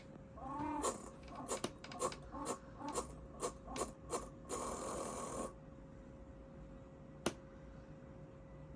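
The strange noise from an old Lenovo Y50-70 laptop: a run of rasping, crackling clicks about two a second, ending in a second-long hiss, then one sharp click a couple of seconds later. A faint steady whine runs underneath.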